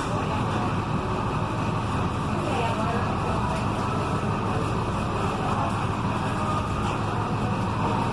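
Volkswagen 17.230 EOD bus running under way, with a steady loud drone from its driveshaft (cardan) and transmission.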